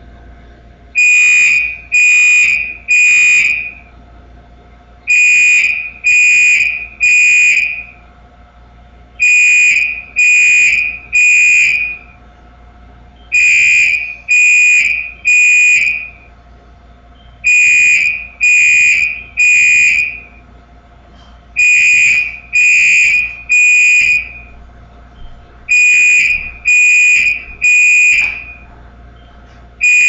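Fire alarm sounding under test, beeping the temporal-three evacuation pattern: three high-pitched half-second beeps, a pause of about a second and a half, then the cycle repeats about every four seconds.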